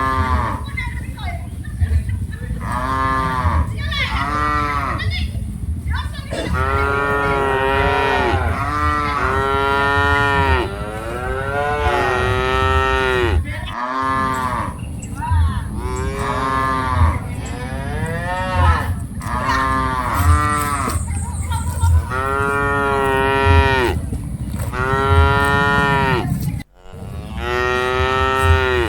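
Several cattle mooing over and over, long calls that rise and fall in pitch, one after another and sometimes overlapping.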